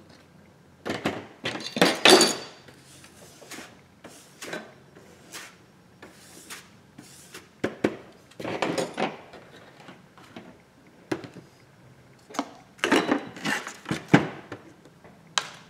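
Handling noise from an opened iPhone X, its display assembly and small tools on a rubber work mat: irregular clicks, taps and scrapes in three main clusters, the loudest about two seconds in.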